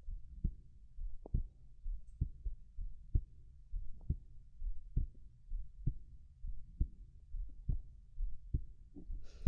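A human heartbeat: steady, regular low double thumps, a little more than one a second, over a faint low rumble.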